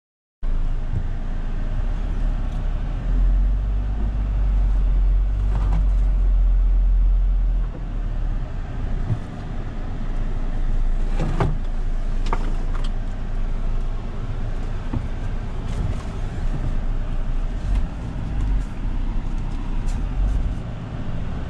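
2020 Mahindra Thar's engine running under load as it crawls up a steep dirt track, a steady low rumble that is heavier for a few seconds early in the climb. A few sharp knocks come about eleven to thirteen seconds in.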